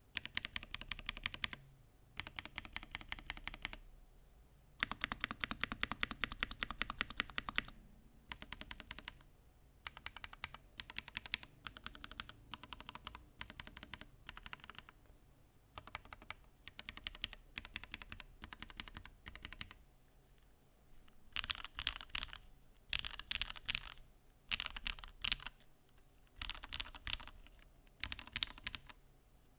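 Mode Sonnet custom mechanical keyboard being typed on in bursts of rapid keystrokes, each run one to three seconds long, with short pauses between them. About two-thirds of the way through, the keystrokes turn brighter and thinner, with less low thock.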